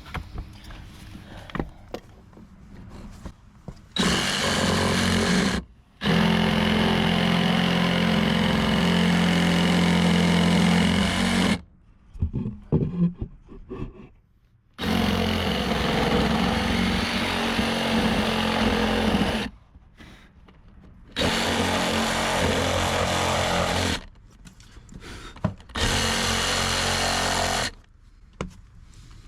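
Reciprocating saw (SawZall) cutting into a wooden deck board for a plunge cut, run in five bursts of a few seconds each with short pauses between.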